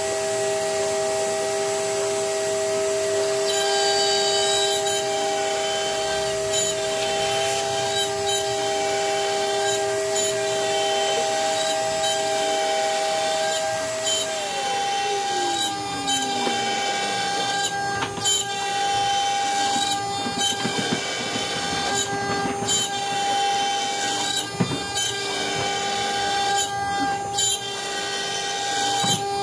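CNC router spindle running with a steady whine while its small bit mills a pocket into a wooden board. About halfway through, one of the machine's tones slides down in pitch. After that a rough cutting noise swells and fades about every two seconds as the bit works through the wood.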